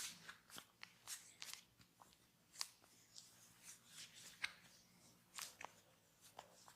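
Faint, irregular crackles and clicks of a barber's hands working over skin and hair during a massage.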